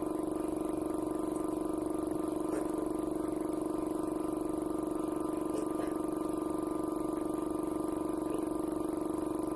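Background music with a plucked guitar, steady throughout.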